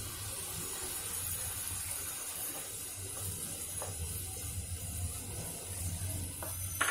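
Tomato-onion masala with oil and a little water sizzling steadily in a pan, with a few faint scrapes of a wooden spatula stirring it.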